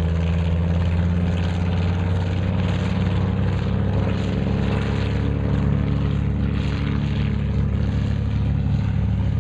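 Grumman Avenger's Wright Cyclone 14-cylinder, two-row radial engine and propeller running steadily with a deep, even drone.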